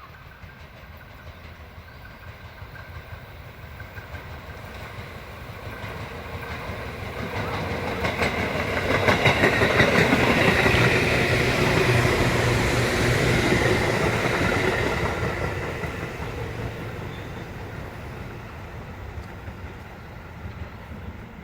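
Tobu Tojo Line electric train passing by: it grows louder over the first half, is loudest from about nine to fourteen seconds in, then fades away, with wheels clacking over rail joints as it comes closest.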